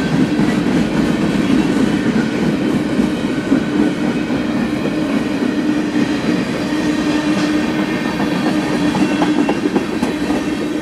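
Freight train cars (boxcars and tank cars) rolling past on steel rails, with a steady low hum under the wheel noise. The rear of the train goes by near the end, and the noise carries on as it moves away.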